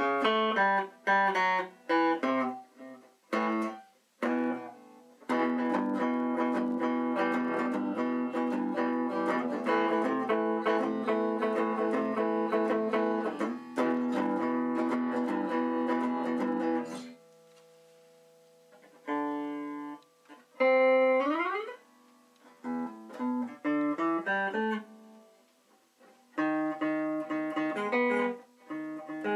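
Small-bodied semi-hollow electric guitar of the CS-356 type being played: separate picked notes, then a long stretch of fast picking, a short pause, and a few short phrases with a rising string bend about two-thirds of the way through.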